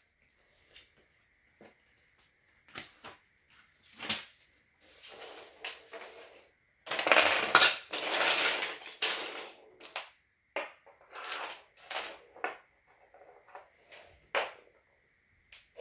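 Wooden Zig & Go toy pieces clattering and knocking on a wooden floor as they are picked up and put down, in many separate knocks. About seven seconds in comes a louder, longer rattling scrape lasting a couple of seconds, as pieces are swept together across the floor.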